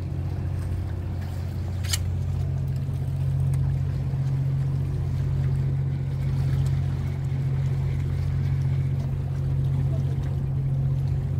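A boat engine running steadily with a low, even drone. One sharp click about two seconds in.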